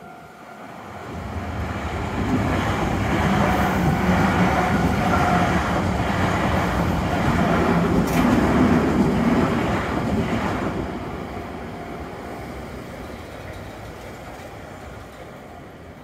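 Electric commuter train passing over a level crossing: the rumble of its wheels on the rails builds from about a second in and stays loud for several seconds, with one sharp click near the middle. It then fades away as the train clears the crossing.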